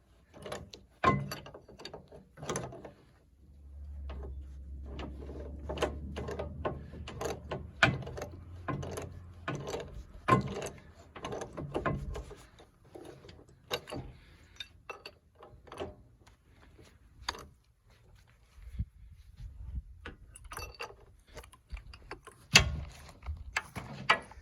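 Irregular metallic clicks, clanks and ratcheting of hand tools working on a tractor's hydraulic cylinder, with a low steady hum for several seconds in the first half.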